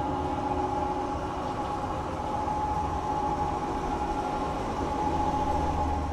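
Two-post car lift's electric hydraulic pump motor running steadily, a constant whine over a low hum, with the car up on the lift.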